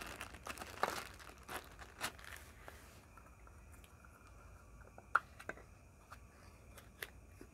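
Wrapper of a ration jam portion crinkling and tearing as it is opened, over the first three seconds, followed by a few faint sharp clicks.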